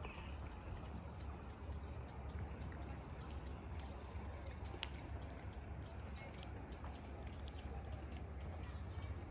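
A steady run of short, high-pitched ticks, about four to five a second, over a low steady rumble.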